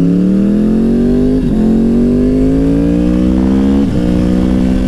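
2009 Yamaha R1's crossplane inline-four accelerating through the gears. The engine note climbs steadily, then drops at two upshifts, about a second and a half in and again near the end, over a low steady rush of wind and road noise.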